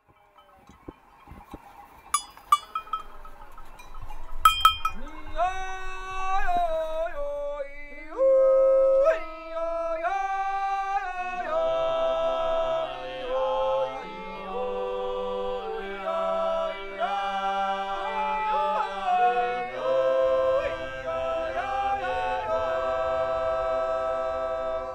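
Naturjuuz, the wordless Swiss natural yodel, sung by a men's group: one voice starts alone with wide leaps in pitch, and about eleven seconds in the others join with held chords over a low sustained bass part. A few short ringing clanks are heard near the start, before the singing.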